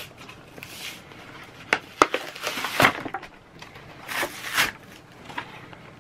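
A few sharp clicks and short rustling, scraping bursts of something being handled, with a louder spell about two to three seconds in and another near the fourth second.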